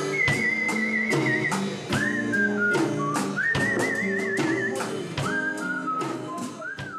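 Live band music: strummed acoustic guitar and a drum kit with cymbal hits, under a high whistled melody that holds long, wavering notes. The music fades out near the end.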